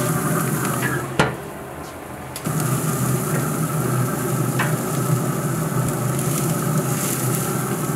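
Beef burger patties and bacon sizzling steadily on a pellet grill's hot grate, over a low steady hum. Metal tongs click sharply twice as the meat is moved, and the sizzle drops away briefly about a second in before coming back.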